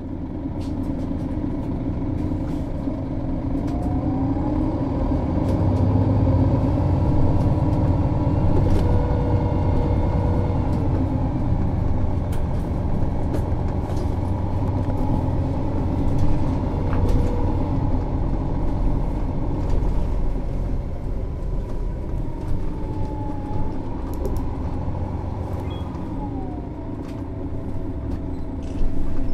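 MAN Lion's City NÜ 273 city bus's diesel engine idling steadily at a standstill, with occasional sharp clicks over it.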